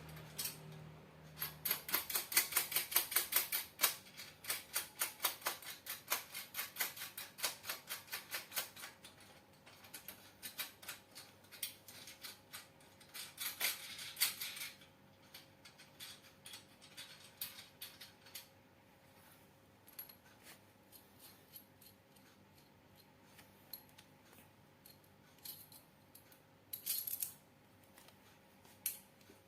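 Ratchet wrench clicking in quick runs as bolts are driven on the grinder's mount, with pauses and a few lighter metal clinks in between.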